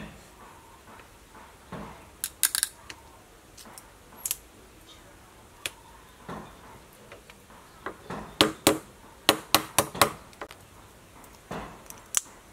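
Cooked mud crab shell cracking and snapping as it is pulled apart by hand: a scatter of sharp cracks and clicks, coming thickest about eight to ten seconds in.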